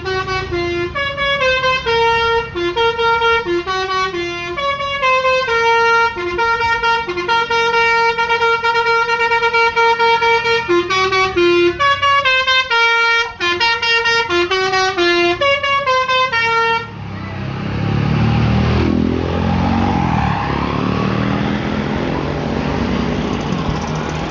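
A tour bus's basuri musical horn playing a long melody of stepped notes, short and held, for about seventeen seconds. It then stops and the loud rumble of the bus's engine and road noise follows, rising and bending in pitch as it moves off.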